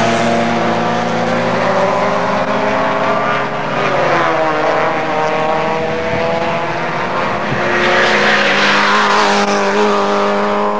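Engines of several racing cars running hard around a circuit, their pitches overlapping. One engine note drops about four seconds in, and a car passes close near the end.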